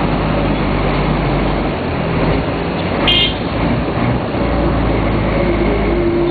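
Volvo B58 bus's six-cylinder diesel engine running with a steady low drone, broken about three seconds in by a brief high-pitched tone.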